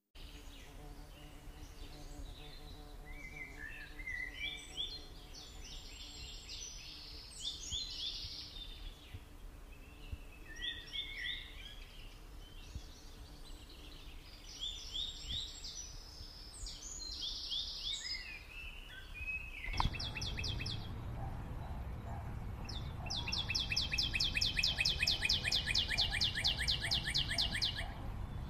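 Birds chirping and calling in two bursts of quick rising chirps. About twenty seconds in, the sound changes abruptly with a click, followed by a rapid, even trill that repeats about five times a second over a low rumble.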